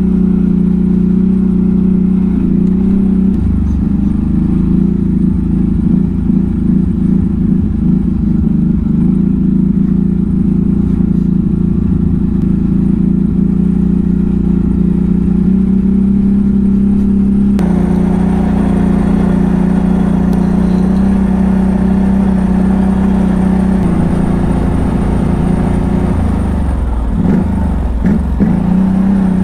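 CF Moto 1000 ATV's V-twin engine running at a fairly steady speed under way, its revs dipping and picking up again near the end.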